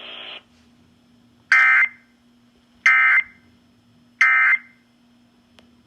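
Emergency Alert System end-of-message code: three short, identical bursts of buzzing digital data tones, each about half a second long and spaced about 1.3 seconds apart, signalling that the alert broadcast has ended.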